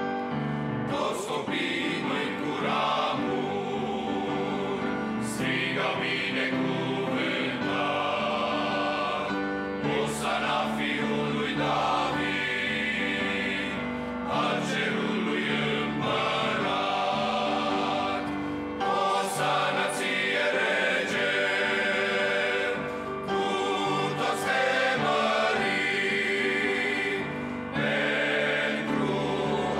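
Men's choir singing a hymn in parts, many voices sustaining and moving together.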